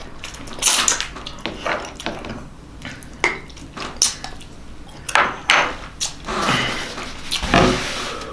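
Wooden utensil tapping and scraping on a ceramic dinner plate, a series of short, sharp clicks spread over several seconds, with soft eating noises between them.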